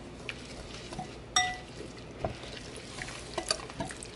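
A utensil stirring liquid in a bowl, mixing red wine vinegar and olive oil, with small scattered clicks. One sharp ringing clink comes about a second and a half in.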